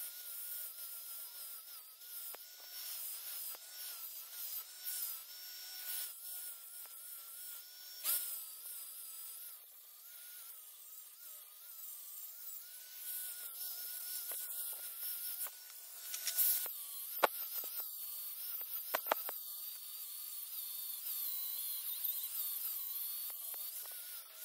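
Electric angle grinder with a 40-grit sanding disc grinding the steel horn of an anvil. The motor whine wavers in pitch as the disc is pressed on and eased off, with a few sharp clicks about three-quarters of the way through.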